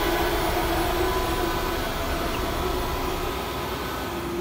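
Steady machinery noise: a constant hum with a rushing hiss over it, easing off slightly near the end.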